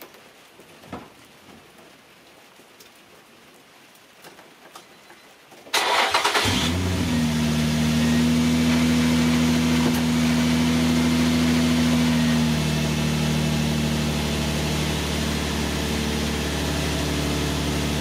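Light rain pattering, then about six seconds in the 2004 Infiniti FX35's 3.5-litre V6 cranks briefly on the starter, catches and runs at a steady fast idle that drops a step about twelve seconds in. The idle is too high, the P0507 fault: about 1,500 rpm where it should be about 900.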